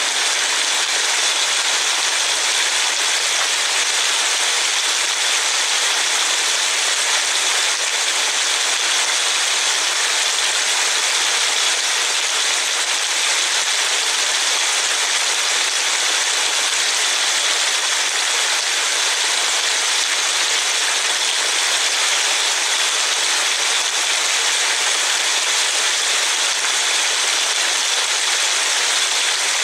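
Steady, even hiss of falling rain.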